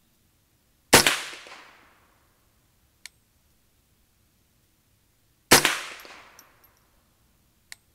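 Two shots from a customized Ruger 10/22 semi-automatic .22 LR rifle, about four and a half seconds apart, each with a short echoing tail. A faint sharp click follows each shot about two seconds later.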